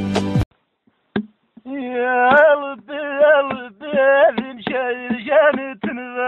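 Music cuts off abruptly, and after a second or so of silence a man sings unaccompanied in short phrases, holding each note and bending it at the phrase ends.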